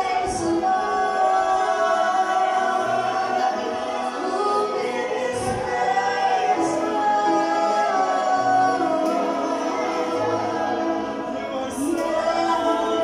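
Live praise and worship song: voices singing over a band of keyboard, electric guitar, bass guitar and drums. A cymbal crash comes about five and a half seconds in and another near the end.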